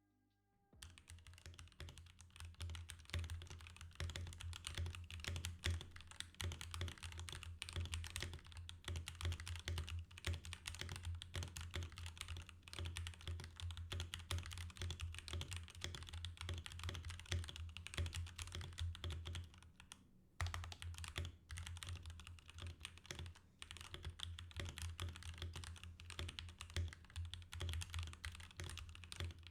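Royal Kludge RK61 60% mechanical keyboard in stock, unmodified form being typed on in a fast, steady stream of keystrokes. Typing starts about a second in and pauses briefly about two-thirds of the way through.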